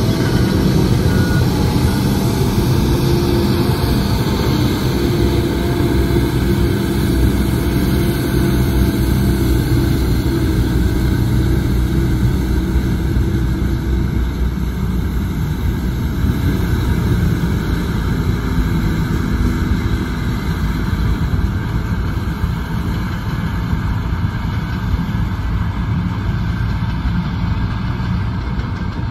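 Volvo 12-wheeler tipper truck's diesel engine running steadily as it drives slowly, with a steady hiss over it from the water spraying out of its rear.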